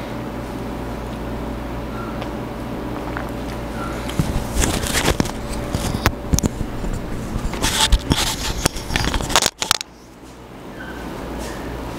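A steady hum, then from about four seconds in loud irregular rustling, crackling and scraping from a clip-on lavalier microphone being handled against a shirt. The noise cuts off abruptly shortly before ten seconds, leaving a quieter hum.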